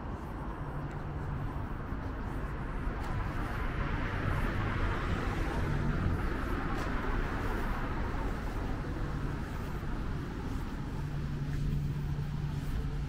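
Street traffic: a passing vehicle's tyre and engine noise swells to a peak about five seconds in and fades, over a low engine hum.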